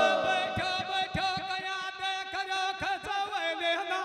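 Male folk singers performing a Rajasthani nahda over a steady held note, with bending sung lines. Loud drum beats stop right at the start.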